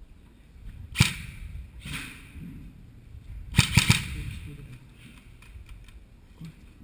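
Airsoft guns firing: a single sharp shot about a second in, another near two seconds, then a quick burst of three around three and a half seconds in.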